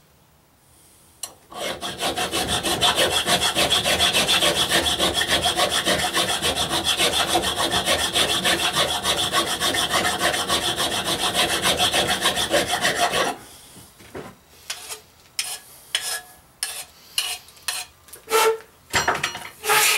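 Hand file worked rapidly back and forth over the cut edge of a steel exhaust pipe for about twelve seconds of even strokes, dressing the edge straight. After that it stops, and the pipe and tools are handled with scattered knocks and clatter.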